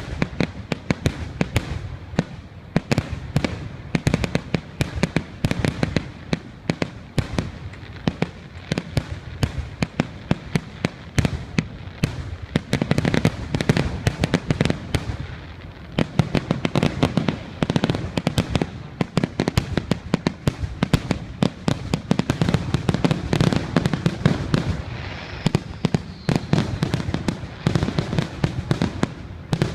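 Fireworks exploding in a rapid, continuous barrage: many sharp bangs and crackles each second, with a deep low rumble under them.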